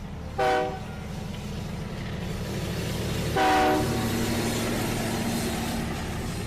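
A train sounding two short whistle blasts, about three seconds apart, over the steady rumble of the train running.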